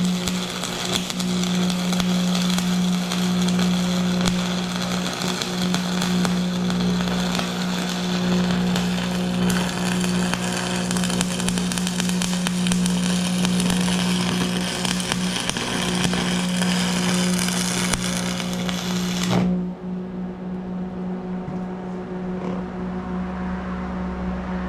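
Arc welding: a steady crackling sizzle from the welding arc over a low, steady hum. The arc cuts off suddenly about five seconds before the end, leaving only the hum.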